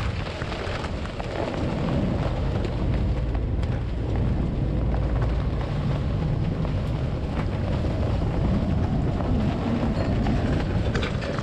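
Microburst storm wind gusting across a sailboat's cockpit with rain, the wind buffeting the microphone into a steady low rumble.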